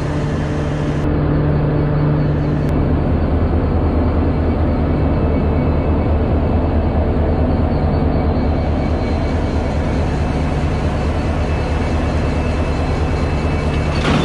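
WDP4 diesel-electric locomotive's EMD 16-cylinder two-stroke diesel engine running with a steady low hum as the locomotive draws slowly up to the train to couple on.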